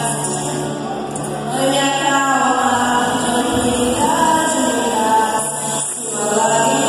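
Choir singing a slow hymn in long held notes over a steady low accompaniment, with a brief break between phrases near the end.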